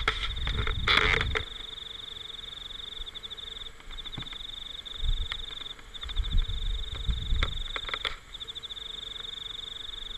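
Insects chirring in a steady high-pitched drone, broken every second or two by short runs of rapid pulses. Low rumbling thumps on the microphone come in surges, the loudest about a second in.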